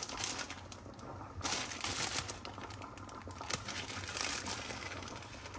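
Clear plastic bag of flaxseed crinkling as it is handled, in irregular crackly stretches.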